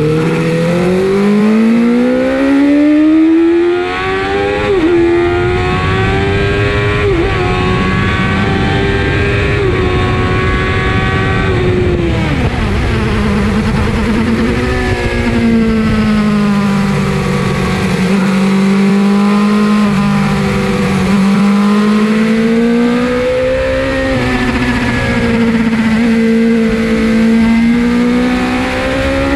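Suzuki GSX-R 750 SRAD's inline-four engine heard from on board under hard acceleration: the revs climb with two brief gear-change breaks in the first seven seconds, fall sharply about twelve seconds in, then hold and swell up and down.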